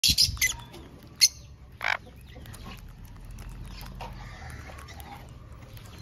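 Parrots squawking: a cluster of loud, harsh calls at the start, a sharp single squawk about a second in and a longer one near two seconds, then fainter chirps over a low, steady hum.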